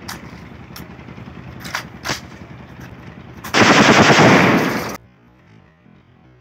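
Rapid burst of shots from a 12-bore shotgun in AK-47 styling with a drum magazine, about a second and a half of very loud, closely spaced blasts from about halfway through. Before it come a few light clicks.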